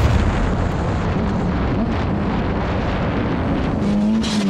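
Sport bike engine running hard under acceleration, its note growing louder and a little higher near the end, with heavy wind rushing over the helmet-camera microphone.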